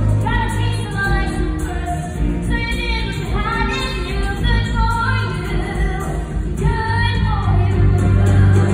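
A woman singing a musical-theatre song with a live band, holding long notes.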